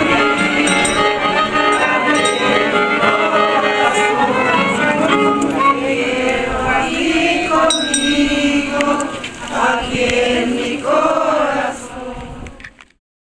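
Group singing with instrumental accompaniment, with a few light clinks, fading out near the end.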